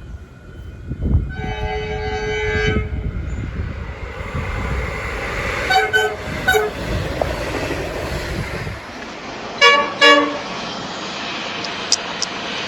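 Train horns sounding: one blast of about a second and a half with several notes at once, then two short toots around six seconds in, and two more short, loud toots near ten seconds, over the rumble of a train running.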